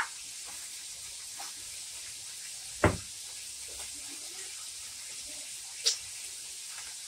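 Two short, sharp clicks about three seconds apart over a faint steady hiss.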